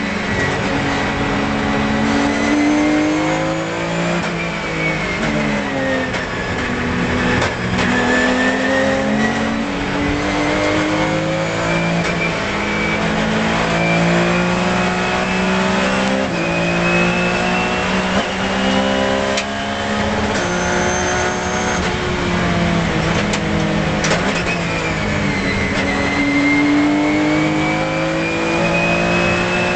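Porsche 997 GT3 Cup's flat-six engine at racing speed, heard onboard. The revs rise and fall with gear changes and lifts of the throttle: two dips early on, a long climb, then a sharp drop near the end and another climb.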